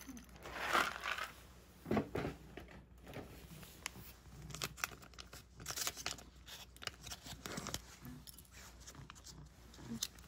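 Plastic cat-food packaging crinkling and rustling in irregular bursts, with scattered small clicks.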